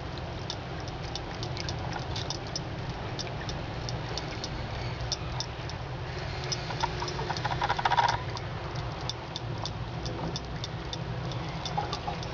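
Cat lapping water from a thin trickle from a faucet: a steady run of small licking clicks, with a brief louder burst about eight seconds in.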